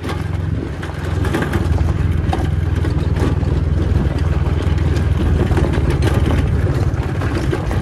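Scooter engine running under way over a rough, stony dirt road, a steady low drone with rattling and knocking from the bumps.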